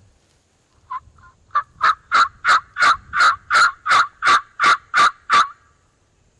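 Series of hen turkey yelps on a turkey mouth call: two soft notes, then about a dozen loud, evenly spaced yelps at about three a second that stop abruptly. It is a loud calling sequence meant to strike a gobbler into answering.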